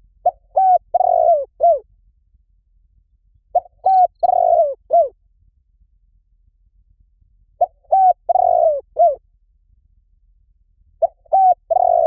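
Spotted dove cooing: a phrase of four notes, two short ones, a longer one, then a short one, repeated about every four seconds, three times over, with a fourth phrase beginning near the end.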